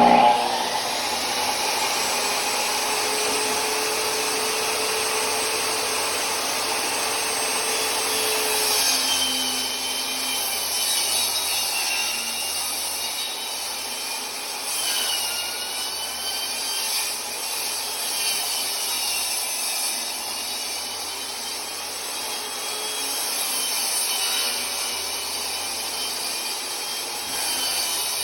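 Power tool cutting into the wood of a cabinet, running steadily with a faint wavering whine.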